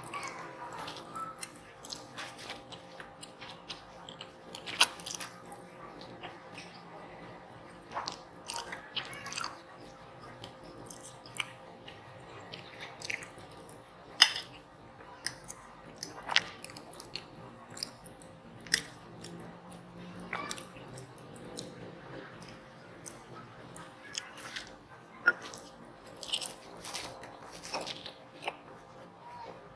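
Close-miked eating of spicy noodles: chewing and wet mouth sounds, with sharp smacks and clicks at irregular moments.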